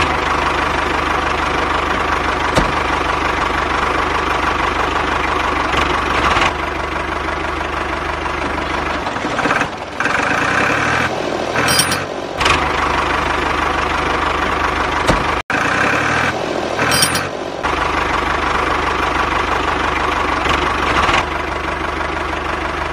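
Tractor engine running steadily with a low chugging, broken off and resumed abruptly several times.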